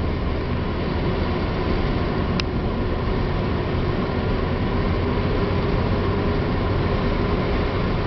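Cabin noise of a 1993 Subaru Legacy SS with a turbocharged 2.2-litre flat-four, pulling under light throttle: a steady engine and road rumble with a faint tone that rises slowly as the revs climb. One short tick comes about two and a half seconds in.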